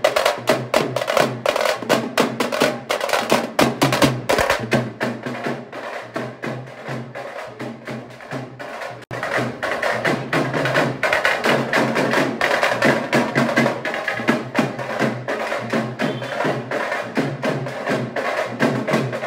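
A group of shoulder-slung drums beaten with sticks in a fast, continuous street-procession rhythm. The drumming is softer for a few seconds around the middle, then picks up again after a brief gap about nine seconds in.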